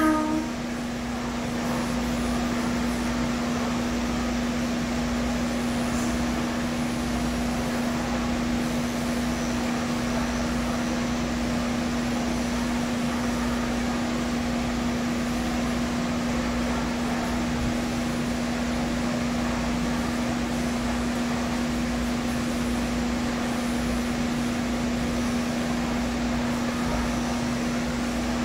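Cordless pet clippers with a 5-in-1 blade running with a steady hum as they shave off a Persian cat's matted coat.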